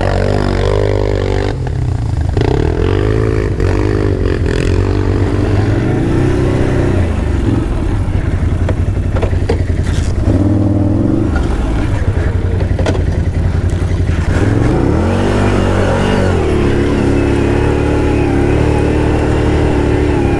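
ATV engine running under throttle, revving up and down several times, then holding a steady higher speed near the end, with a few clattering knocks along the way.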